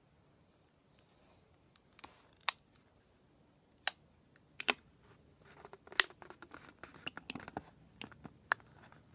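Sharp plastic clicks and snaps as a thin plastic water bottle and a rubber balloon are handled at the bottle's neck. The clicks come singly at first and grow busier in the second half.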